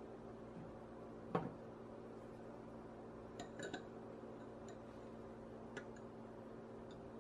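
A few light clicks and knocks of glass kitchenware and a spatula: one sharp knock about a second and a half in, then a small cluster of light clicks around three and a half seconds and another click near six seconds, over a faint steady hum.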